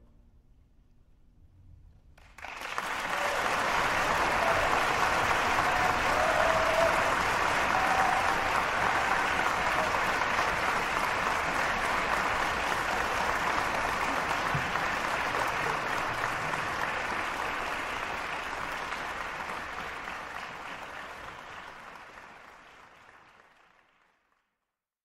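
Applause starts suddenly about two seconds in, holds steady for a long stretch, then slowly fades away near the end.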